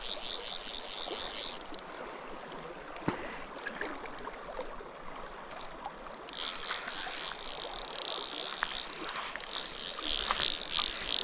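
Stream water running steadily, with the fast clicking buzz of an Orvis fly reel's ratchet as line is wound in on a hooked trout, in two spells: briefly at the start and again from about six seconds in.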